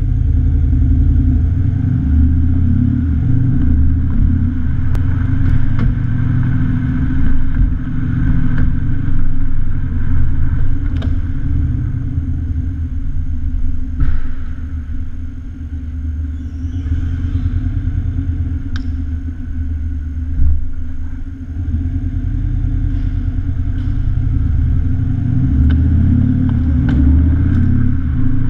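Exhaust note of a four-cylinder 2.0 TDI diesel Audi A6 fitted with the Audi Dynamic Exhaust System, a deep rumble as the car drives through an underground car park. It eases off for a few seconds past the middle and builds again near the end, with a few light clicks.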